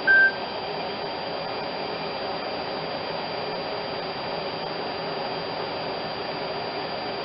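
Steady blowing air noise, like a fan or blower running, with one short, loud high beep right at the start.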